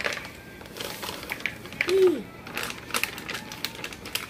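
Chocolate chips poured from a bag into a plastic mixing bowl, falling in a run of irregular light clicks.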